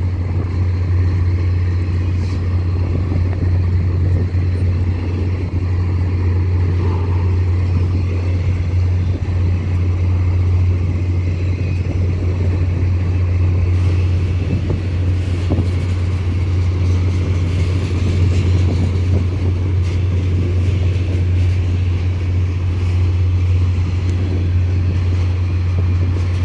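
Freight train cars rolling past in a steady low rumble.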